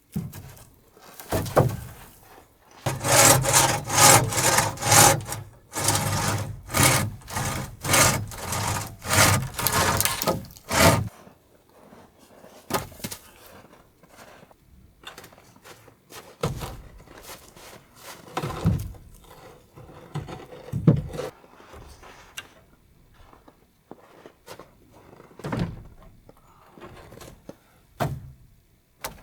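Wood being sawn by hand: a run of steady back-and-forth strokes, about two a second, for several seconds. After that come a few scattered knocks and scrapes of wood being handled.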